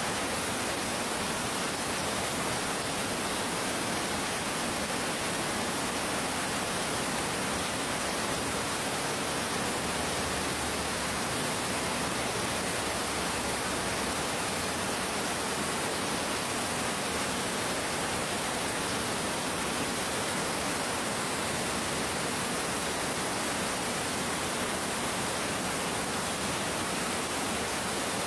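Heavy pouring rain: a dense, steady hiss with no breaks or surges.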